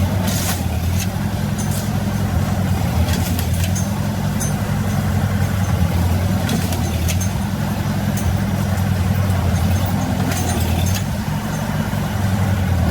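Ford 2N tractor's flathead four-cylinder engine running steadily, with scattered sharp clicks and knocks over it.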